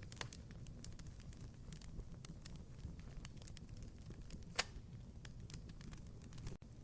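Fireplace fire crackling: irregular small pops and snaps over a low steady rumble, with one sharp, louder pop about four and a half seconds in.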